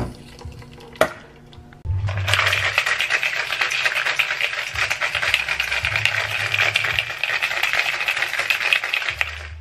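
Ice rattling hard inside a metal cocktail shaker as an espresso martini is shaken: a fast, dense rattle lasting about seven seconds. A single sharp click comes about a second in, before the shaking starts.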